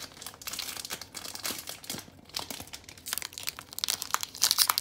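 Foil Pokémon booster pack wrapper crinkling as it is torn open and handled, with many small crackles that grow busier near the end.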